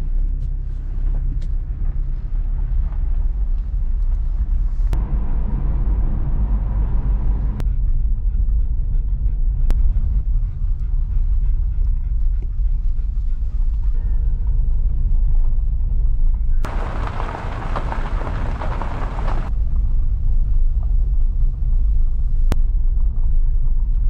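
Inside a moving car: a steady low rumble of engine and tyres on the road. The hiss swells twice, for a couple of seconds about five seconds in and for about three seconds past the middle, with a few sharp clicks.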